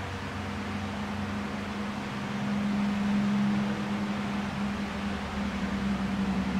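A steady low machine hum with a hiss underneath, swelling slightly about halfway through.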